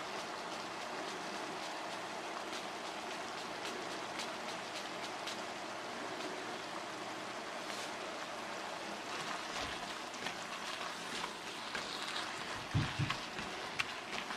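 Sliced beef and onions sizzling steadily in a hot nonstick pan, with sharper crackles and pops growing more frequent from about nine seconds in. Near the end a few dull knocks as a silicone spatula starts stirring the pan.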